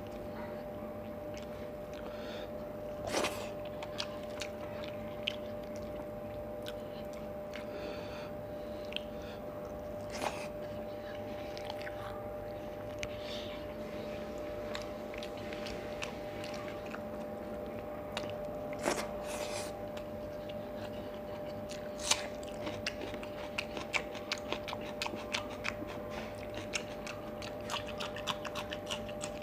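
Close-up eating sounds of a person eating rice and fried fish by hand: wet chewing and crunching with a few sharp clicks spread out, turning to rapid crunchy chewing in the last several seconds, when a green chilli is bitten. A steady faint hum runs underneath.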